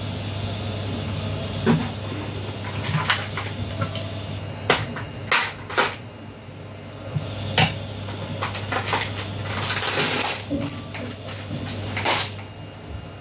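Kitchen handling noises: a utensil knocking and scraping in a frying pan and a plastic packet being handled, heard as a string of sharp clacks and a brief rustle, over a steady low hum.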